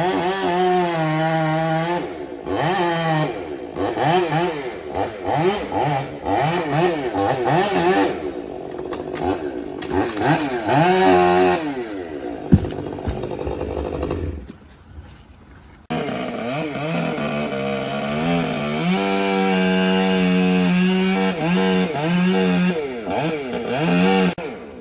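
Chainsaw running and cutting, revving up and down over and over with held full-throttle stretches while it cuts through the tree. There is a sharp crack about twelve seconds in and a brief lull about two seconds later.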